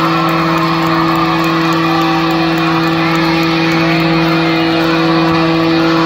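Amplified live band holding a loud, steady low drone, with a concert crowd screaming and cheering over it.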